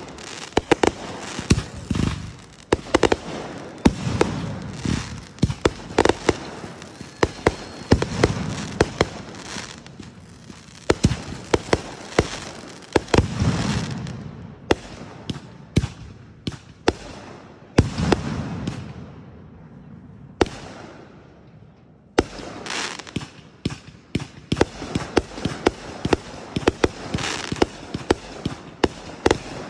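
Fireworks going off in rapid succession: many sharp crackling reports mixed with deeper booms every few seconds. They thin out briefly about two-thirds of the way through, then come thick again.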